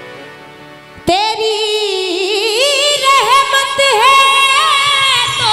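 Quiet harmonium accompaniment, then about a second in a woman's voice comes in loudly, singing a devotional bhajan line in long held notes with vibrato and ornaments over the harmonium.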